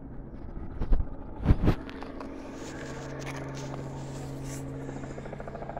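A few sharp handling thumps and scrapes in the first two seconds, then a steady low engine hum running evenly.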